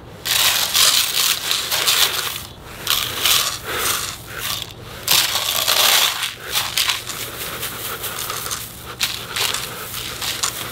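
Granular bonsai soil poured from a plastic jug into a plastic seed tray: a gritty, crackling hiss of grains landing, in several pours with short breaks between them, softer near the end.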